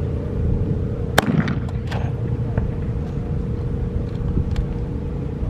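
A .303 Lee-Enfield bolt-action rifle fired: one sharp shot about a second in, a few faint clicks after it, and another shot right at the end. A steady hum with low rumble runs underneath.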